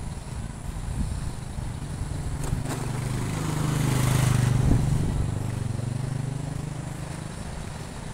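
A motor vehicle drives past. Its engine sound rises to a peak about four seconds in and then fades away.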